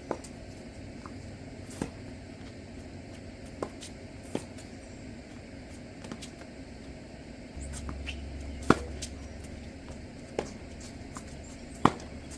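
Tennis balls being hit and bouncing on a court: sharp, irregularly spaced pops, the loudest about two-thirds of the way through. A low steady hum joins from a little past halfway and stops near the end.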